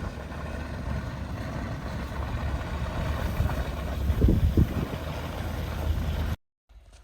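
Truck on the move: a steady low rumble of engine and road noise with a couple of low thumps about four seconds in, cutting off suddenly near the end to a much quieter background.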